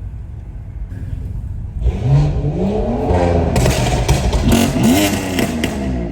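Stage 2 tuned BMW 540i with a custom exhaust rumbling low, then accelerating hard from about two seconds in. The engine note climbs, drops back and climbs again, with a quick run of sharp exhaust crackles over the second half.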